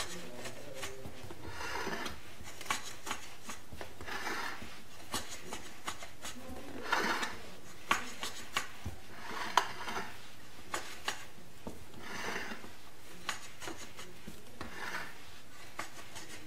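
A metal cake pan and its lid being handled on a counter: a series of rubbing, scraping strokes every two to three seconds, with light clinks and taps in between.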